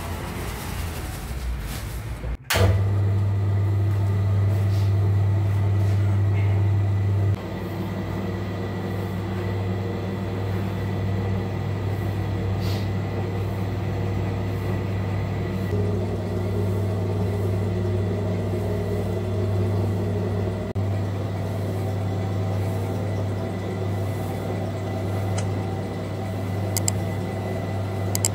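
Flour pouring from a sack into a dough mixer bowl, with a soft rushing sound for the first couple of seconds. Then the electric motor of a commercial dough mixer runs with a steady low hum, which drops a little in loudness about seven seconds in.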